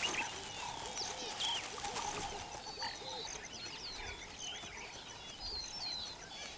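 Outdoor natural ambience of many wild birds chirping and whistling in short, scattered calls, over a faint high, evenly pulsing tone in the background.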